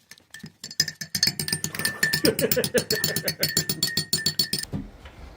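Percussive music with rapid clicking, wood-block-like beats and a steady high tone, starting about a second in and cutting off suddenly near the end.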